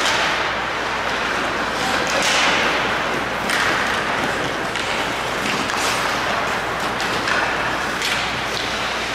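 Ice hockey play: skate blades scraping and hissing across the ice in repeated strokes, with sticks and puck knocking now and then.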